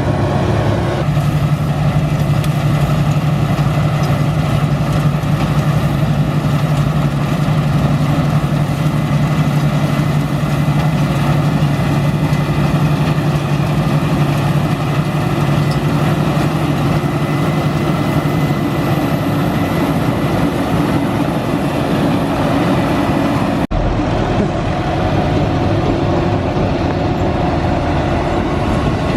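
A vehicle engine running steadily with a strong low hum. About three-quarters of the way through there is an abrupt break, after which the engine's tone changes.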